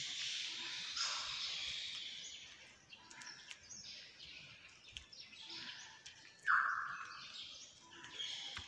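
Birds chirping, with a short louder call about six and a half seconds in.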